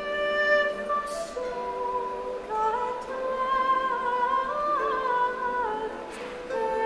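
Background music: a slow melody of long held notes that step from pitch to pitch.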